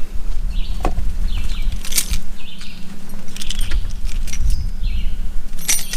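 Small items being handled and rummaged out of a bag, with several sharp clicks and rattles, over a steady low rumble and a faint hum. Birds chirp briefly now and then.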